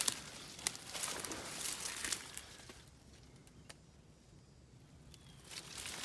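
Footsteps crunching through dry leaf litter, with brush and vines rustling against the body and legs. The crackling dies down for a couple of seconds about halfway, then starts again near the end.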